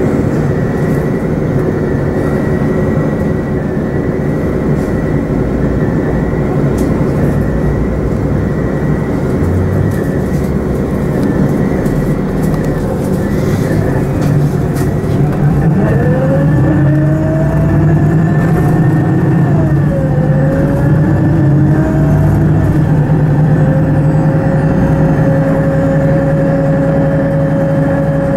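City bus heard from inside the passenger cabin: its engine idles with a steady hum while standing, then about halfway through the bus pulls away and the engine note rises, dips once as the gearbox shifts, rises again and then holds steady as the bus drives on.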